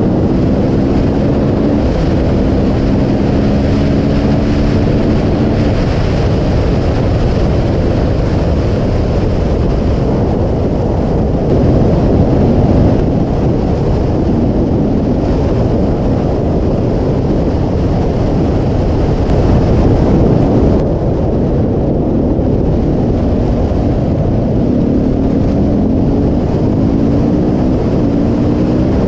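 Husqvarna supermoto ridden at speed, its engine note under heavy wind rumble on a helmet-mounted microphone. The engine pitch rises in short repeated climbs at the start and again near the end, as the bike accelerates through the gears.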